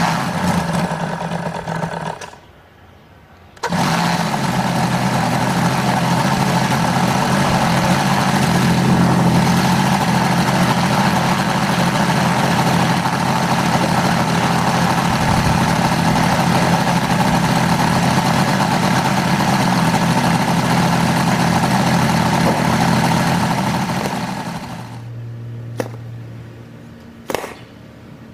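Model radial engine being spun over by a handheld electric starter, then, after a short gap, starting suddenly and running steadily for about twenty seconds before dying away. A few sharp clicks near the end.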